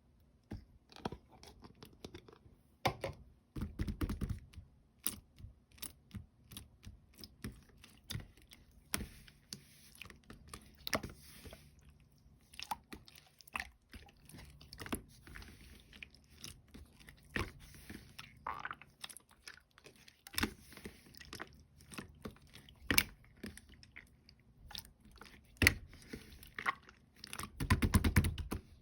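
Clear yellowish slime being squished and worked by hand, giving irregular sticky clicks and crackly pops, with louder squishing about four seconds in and near the end.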